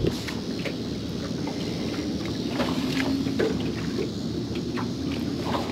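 Wind and water noise on a small fishing boat, with scattered light clicks and taps as fishing tackle is handled.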